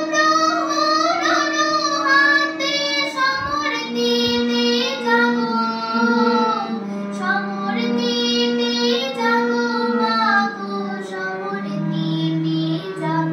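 A young girl singing, accompanying herself on a harmonium whose reeds hold steady notes beneath her wavering voice.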